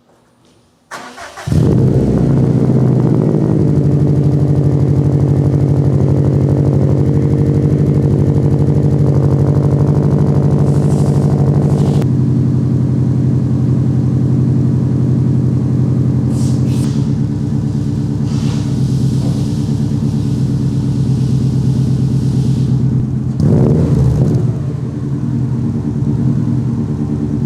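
Subaru WRX STI's EJ25 turbocharged flat-four cranking and catching on a cold start through a Noble titanium cat-back exhaust, then idling steadily. It grows briefly louder about 23 seconds in.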